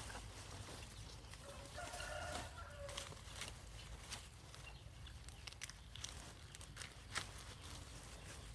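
A chicken calls once, briefly, about two seconds in. Scattered faint clicks and knocks sound over a steady low rumble.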